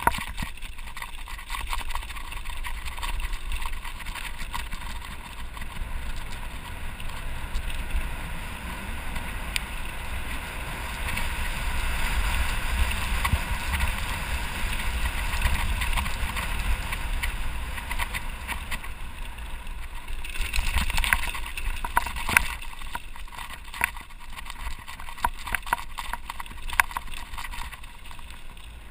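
Wind rushing over the microphone and mountain bike tyres rolling over dirt and gravel on a fast downhill run, loudest midway, with the bike rattling and knocking over bumps in the second half.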